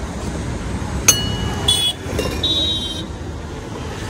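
Steady road traffic noise. About a second in there is a sharp click, followed by a few short, high-pitched beeping tones over the next two seconds.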